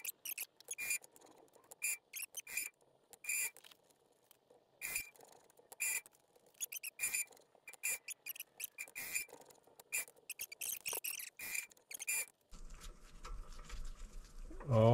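Irregular short, squeaky metallic clicks, a few a second at most, from hand work on a 7x14 mini lathe between threading passes. A low hum comes in near the end.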